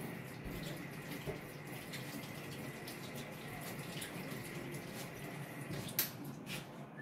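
Kitchen tap running while hands are washed under it, with a sharp click about six seconds in.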